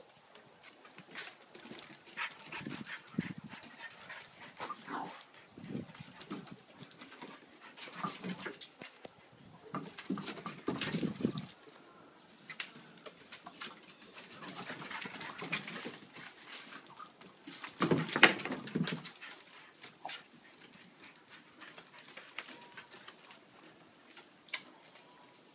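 Several dogs play-wrestling on a wooden deck: irregular bursts of dog vocalising with scuffling and scrabbling paws on the boards, loudest about 11 and 18 seconds in.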